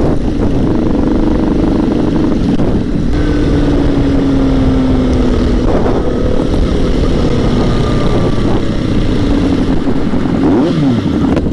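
Sport motorcycle engine running at riding speed, heard onboard with wind rushing over the microphone; the engine note eases down, then drops and climbs again briefly near the end as the rider rolls off and back on the throttle.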